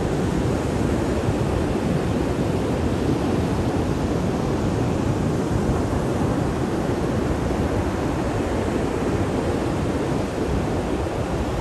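Rough surf breaking on the beach in a steady, even rush of noise, mixed with wind buffeting the microphone.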